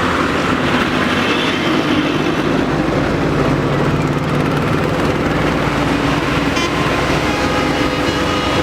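Diesel engine of a JCB backhoe loader running steadily.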